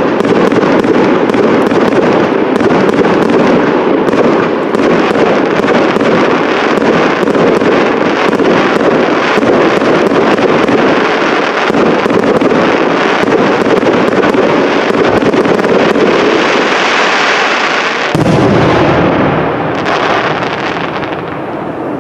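Aerial fireworks display: a dense, continuous barrage of shell bursts and crackling, loud throughout. About 18 seconds in the sound changes abruptly, then dies down toward the end.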